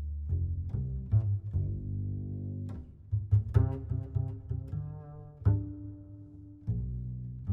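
Background music built on low pitched notes, some held and some sharply attacked, changing every half second or so over a steady bass line.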